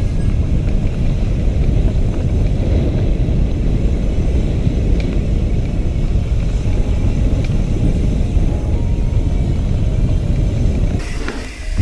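Steady low rumble of wind buffeting the camera microphone, with tyre noise, as a mountain bike rolls quickly along a dirt trail, plus a few faint clicks; it eases off about eleven seconds in.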